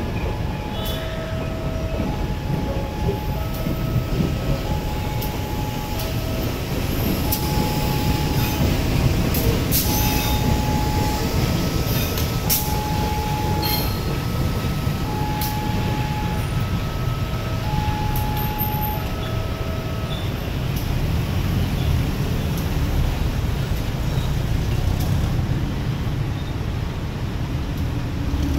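Passenger train's coaches rolling slowly past, then its KAI diesel-electric locomotive, with a steady low rumble and scattered sharp clicks from the wheels. Over the first twenty seconds a repeating electronic chime of short tones at three pitches plays along with it.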